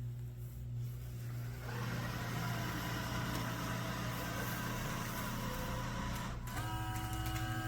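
Roborock S8 Pro Ultra robot vacuum running with a steady motor hum that grows louder about two seconds in. Near the end a higher whine of several steady tones joins in.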